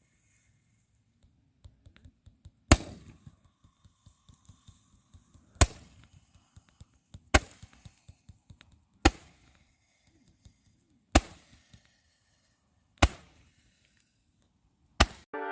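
Consumer fireworks going off: seven sharp bangs about two seconds apart, each followed by a short tail, with faint small crackles and pops between them.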